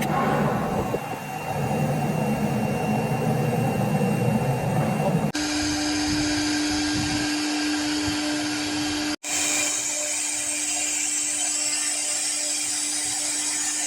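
AccTek AKM1325 CNC router's high-speed spindle running and cutting, a steady high whine over cutting noise, like a dentist's drill. The sound changes abruptly about five seconds in and again about nine seconds in, where it drops out for an instant.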